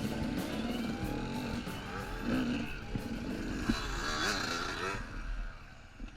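Two-stroke dirt bike engine revving up and down, fading away about five seconds in.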